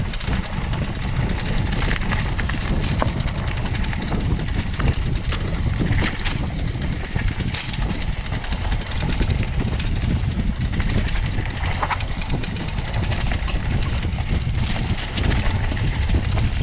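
Mountain bike riding over a rough dirt trail: wind rumbling steadily on the microphone, with many small clicks and rattles from the tyres and bike over bumps.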